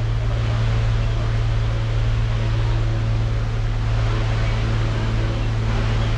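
A steady low hum over a constant hiss from a running machine, unchanging throughout.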